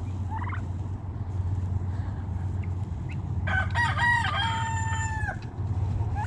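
A rooster crows once about three and a half seconds in: a few short notes, then a long held note that cuts off. A brief chirp comes near the start, and a steady low hum runs underneath.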